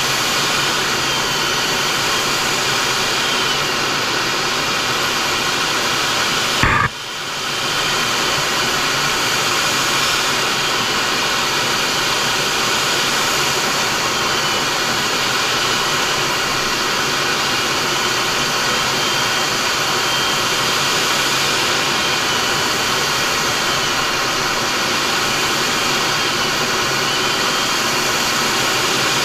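Steady rush of jet engine and airflow noise inside the cockpit of a MiG-29 in flight, from its twin RD-33 turbofans. About seven seconds in there is a single sharp click, and the noise briefly drops and swells back.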